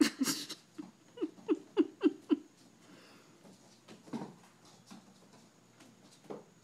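Kittens' paws scampering on a hardwood floor: a brief rustle at the start, a quick run of five light taps about a second in, then a couple of single thumps.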